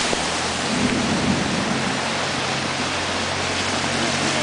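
Lorry driving through deep floodwater: a steady rush of water and rain over the low, even hum of its diesel engine.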